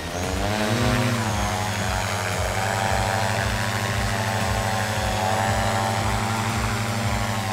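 Two-rotor drone (duocopter) with its two motors and propellers spinning up, the pitch rising over the first second as it lifts off, then a steady propeller hum as it hovers.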